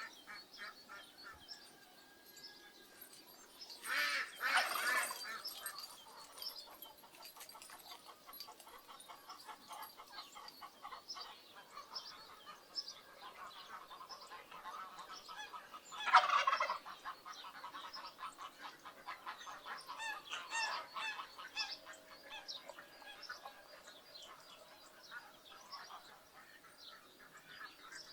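A mixed flock of farmyard poultry, geese, ducks and turkeys, calling continually in quick short notes, with two louder calls about four and sixteen seconds in.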